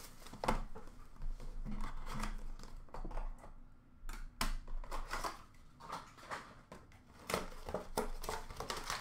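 Hands opening a trading card box and handling its contents: scattered clicks, rustles and scrapes of cardboard and plastic.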